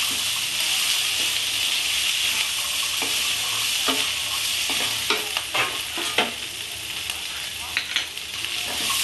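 Cauliflower, potato and peas sizzling in hot oil in a non-stick kadai while being turned over with a wooden spatula: a steady sizzle, with scattered scrapes and taps of the spatula against the pan, most of them in the second half.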